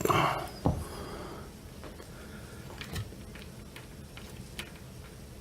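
Hands working at e-bike wiring connectors: a louder scuffing rustle at the start, then a sharp click just under a second in, another about three seconds in, and scattered faint ticks as the plugs are pried at.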